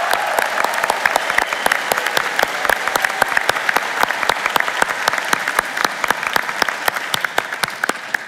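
A large audience applauding: many people clapping at once, a dense steady patter of claps that eases off slightly near the end.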